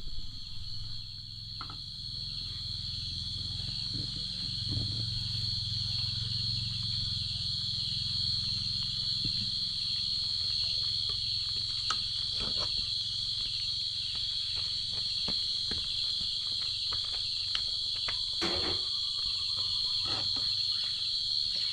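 Crickets trilling in a steady high-pitched chorus, with a few scattered knocks of a metal ladle against a wok as it is stirred.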